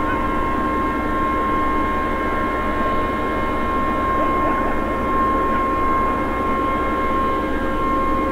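A loud, unexplained steady drone of several held tones sounding together, the mystery sound people reported hearing at night (a so-called skyquake), which the recorder wonders might be a gigantic generator or a huge air-conditioning system.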